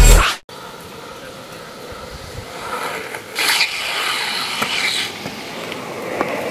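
Longboard wheels rolling on asphalt, with a louder scrape about three and a half seconds in as a rider slides out onto the road, and a few light clicks afterwards.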